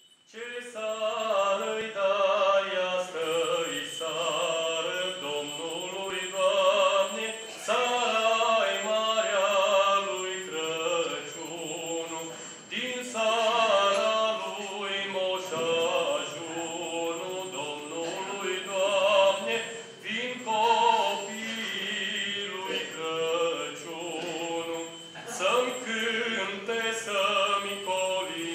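A man singing a Romanian Christmas carol (colindă) solo into a microphone, one voice holding and shifting between sung notes.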